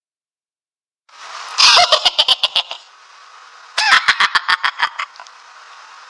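Cartoon laugh sound effect: two bursts of fast 'ha-ha-ha' laughter, each about a second long, the first starting about a second and a half in, with a faint hiss between them.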